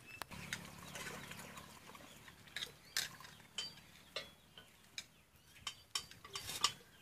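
Faint scattered clicks and knocks, about a dozen, from firewood sticks and metal cooking vessels being handled, with a few short high calls in the background.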